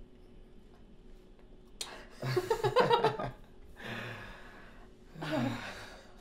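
A man and a woman laughing breathily in three short spells, starting about two seconds in.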